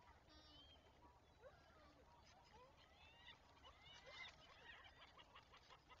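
Faint chorus of wild bird calls, many short chirps and whistling glides overlapping, busiest about four seconds in and followed by a quick run of short notes near the end.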